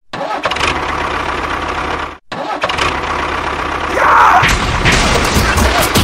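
A tractor engine cranking and running rough with a low rumble. It cuts out briefly about two seconds in, then runs on, louder and with rapid knocking from about four and a half seconds.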